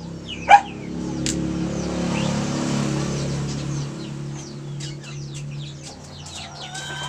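Chickens clucking and squawking, with one loud squawk about half a second in, over the steady hum of an engine that swells and then eases off.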